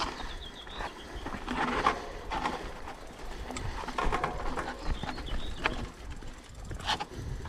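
Bicycle rattling and knocking irregularly as it is ridden over an uneven path, over a steady low wind rumble, with a few short bird chirps.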